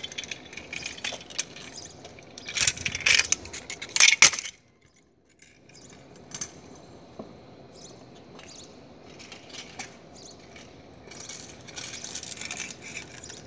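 A kick scooter's small wheels rolling over the pavement, with rattling and clinking from its metal frame. The noise cuts out about four and a half seconds in, leaving faint scattered clicks, and swells again near the end as the scooter comes back.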